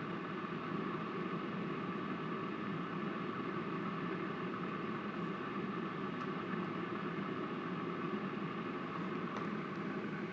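Steady mechanical hum and hiss with no breaks or changes.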